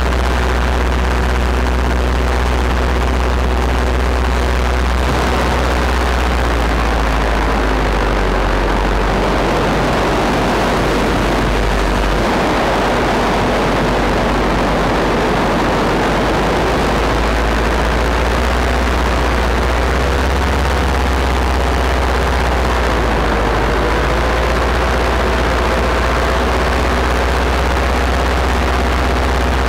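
Paramotor's small backpack engine and propeller running steadily in flight. The pitch sags and recovers a little a few times. A rushing wind noise goes with it.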